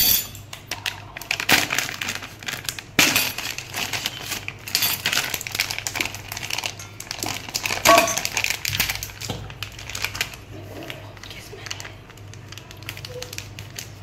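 Foil cake-mix packet crinkling and crackling as it is handled and torn open, in irregular bursts with louder crackles in the first few seconds and around eight seconds in, quieter toward the end.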